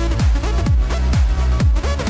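Electronic dance music with a deep, steady kick drum, about two beats a second.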